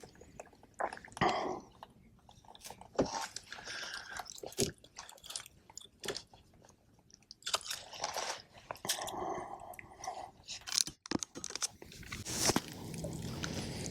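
Irregular clicks, knocks and rustling handling noises from the fishing tackle and boat while a hooked bass is played and brought in, with a steadier rush of noise near the end.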